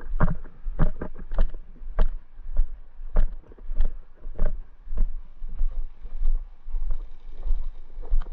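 Footsteps at a steady walking pace, about three steps every two seconds, each a short thud, over a constant low rumble of wind on the microphone.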